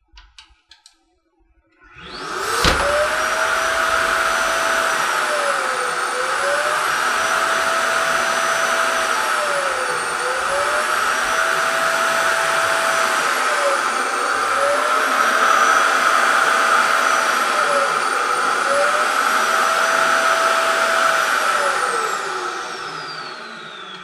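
Samsung BESPOKE Jet Clean Station's suction motor emptying the docked stick vacuum's dust canister: it starts about two and a half seconds in and runs loud and steady, a bit noisy, with a whine that dips in pitch about every four seconds. Near the end it winds down, its pitch falling as it fades.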